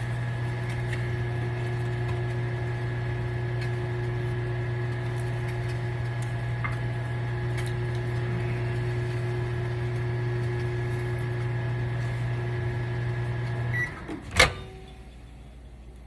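Microwave oven running with a steady hum while reheating taco meat; the hum cuts off about 14 seconds in, and a moment later a single sharp click sounds, like the door latch popping open.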